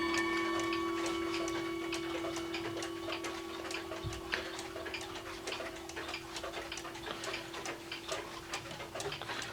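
Small one-day (30-hour) weight-driven cuckoo clock ticking with a quick, even tick-tock from its pendulum movement, about three ticks a second. A low ringing tone fades slowly underneath.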